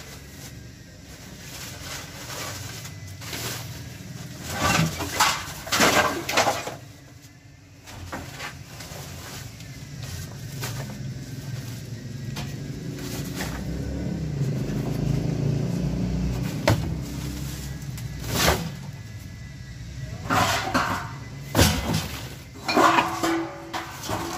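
Clutter being shifted by hand in a search: knocks and clatter of plastic cans, sacks and glass bottles clinking, in several bursts. A low rumble swells through the middle.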